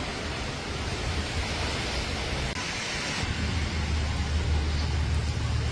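Traffic driving through a flooded street, tyres hissing and splashing through standing water. About three seconds in it changes to a steady rush of muddy floodwater with a heavy low rumble under it.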